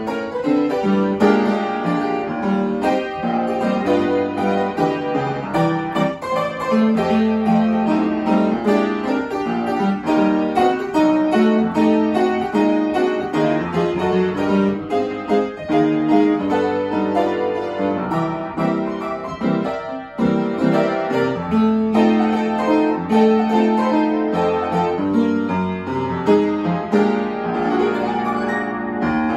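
Upright piano played solo with both hands: a steady stream of many notes, without pause.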